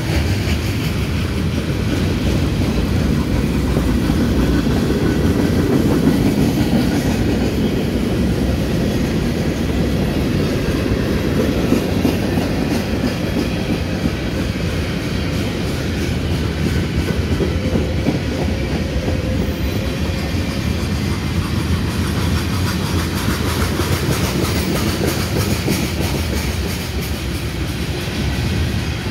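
Freight cars of a slow-moving CSX train rolling past: a steady rumble of steel wheels on the rails, with wheels clicking over the rail joints.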